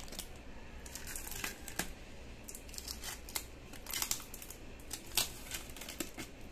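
Packing tape being peeled off the lid of a container, with irregular crackles and crinkles as it pulls away.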